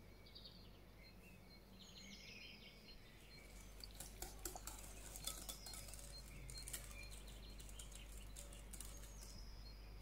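Wire whisk clinking against a glass mixing bowl while beating a thin batter, a quick run of light clinks in the middle.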